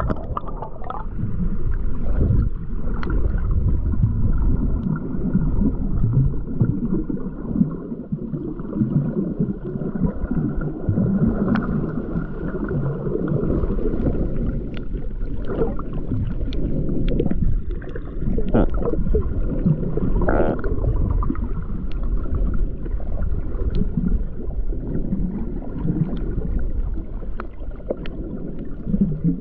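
Muffled sloshing and gurgling of water as heard by a camera underwater, with scattered clicks and pops.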